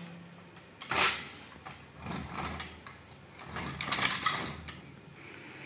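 A hand handling a plastic toy train locomotive on its track, making a few short plastic clicks and knocks about a second in and again around two and four seconds in.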